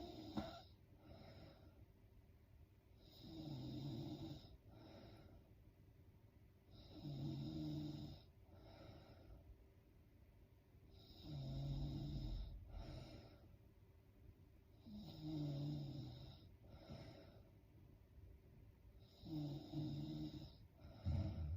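A woman snoring in her sleep, about five slow breaths roughly every four seconds. Each breath is a snore lasting over a second, followed by a shorter, fainter one.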